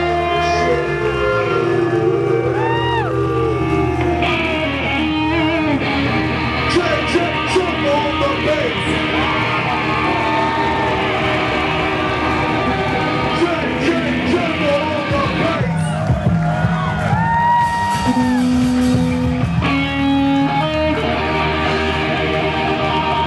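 Live funk band playing: electric bass, drums and guitar, with a lead line that bends up and down in pitch.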